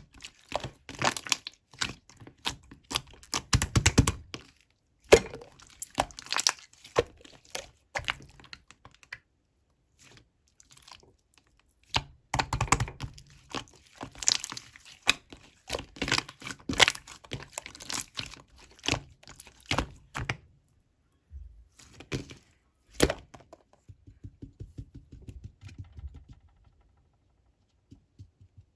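Clear slime being squished and pulled by hand, giving runs of sharp crackling and popping clicks, broken by a few short pauses.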